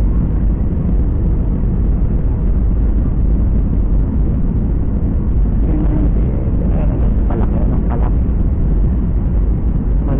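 Steady, loud low rumble of a jet airliner heard from inside the passenger cabin, with faint voices about six to eight seconds in.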